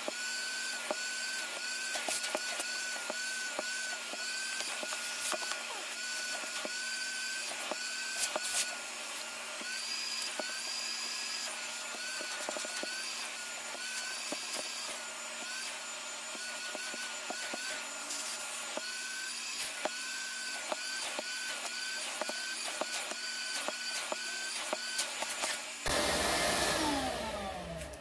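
Corded Shop-Vac wet/dry vacuum running steadily as its nozzle is worked over a carpeted car floor mat: a whistle of air at the nozzle wavers up and down as it moves, with many small clicks of dirt pulled up the hose. Near the end it is switched off and the motor winds down.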